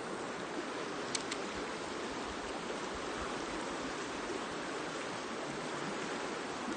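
River water rushing steadily, with two faint quick clicks about a second in.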